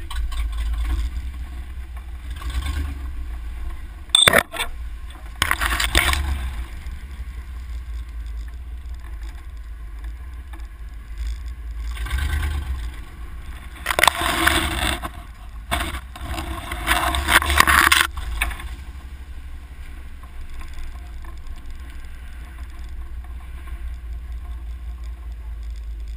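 Off-road 4x4 crawling along a dirt trail with a steady low rumble, broken several times by loud rushing scrapes as brush drags along the side of the vehicle, the longest about two-thirds of the way through.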